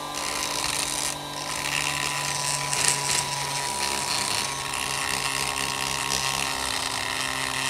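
Small rotary tool with a burr bit running steadily and grinding inside a port of an aluminium Suzuki Forsa Amenity cylinder head, porting and smoothing the port: a steady whine with a rasping hiss that briefly thins about a second in.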